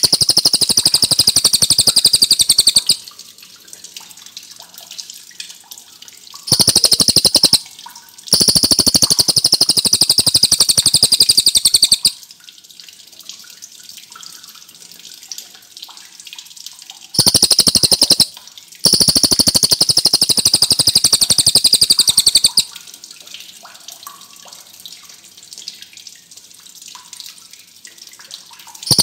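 Cililin songbird singing in long, very rapid rolling trills, each burst lasting one to four seconds with short pauses between, five bursts in all.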